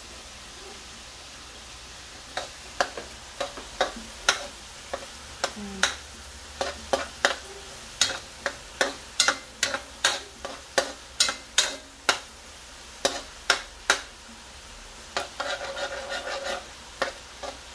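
A metal spatula stirring ground beef, onion and melted butter in a metal wok, knocking and scraping against the pan about twice a second from a couple of seconds in, with a longer run of scraping near the end. A low, steady sizzle runs underneath.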